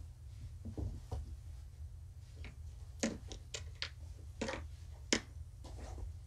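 A quick run of about seven sharp clicks and taps in the second half, the first and last the loudest, over a steady low hum.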